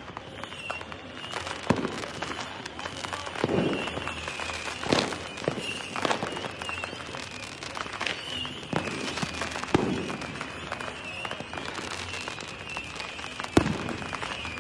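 Aerial fireworks bursting: a string of booms and cracks, roughly one every second or two, the sharpest near the end, over a continuous crackle and a faint steady high whine.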